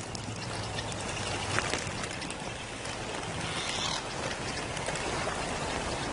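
Shallow water splashing and sloshing as a lioness wades with a prey carcass hanging from her jaws. Small clicks are scattered through it, with a brief louder splash just before four seconds in.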